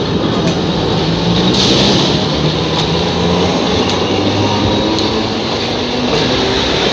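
Alexandria tram running by at close range: a steady rumble of wheels on the rails, with a low motor whine that rises slowly in pitch.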